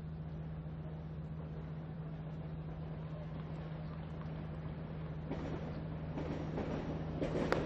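Steady low hum under the background noise of a tennis broadcast between points. The noise grows louder and fuller in the last two seconds, with one sharp click near the end.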